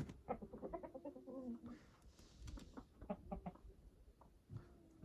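Chickens clucking: a quick run of short calls in the first second and a half, then scattered clucks, a short lull, and more calls near the end.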